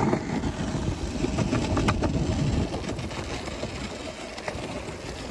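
Longboard wheels rolling over a concrete promenade: a steady rumble with a few sharp clicks, easing a little about halfway through.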